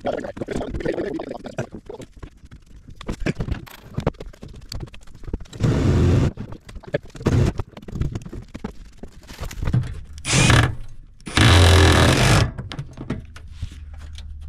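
Gloved hands smearing wet duct mastic over the seams of a galvanized sheet-metal plenum, with soft squishing and scraping. Three loud rushing noises break in about halfway through and near the end, the last over a second long.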